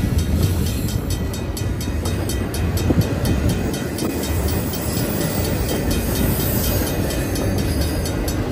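Double-stack intermodal well cars of a freight train rolling past close by: a steady rumble and clatter of steel wheels on the rails, with a fast, even ticking running through it.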